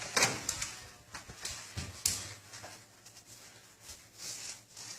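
A few light clicks and knocks, the handling and play noises of a small room, thinning out after the first two seconds, with a soft rustle near the end.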